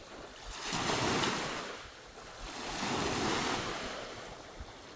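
Waves washing in on the shore, two swells of surf about two seconds apart, each rising and falling away.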